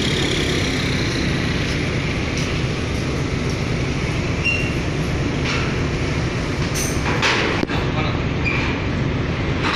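Steady low rumble of a ferry's diesel engine, heard from on board, with a few short metallic knocks around seven seconds in.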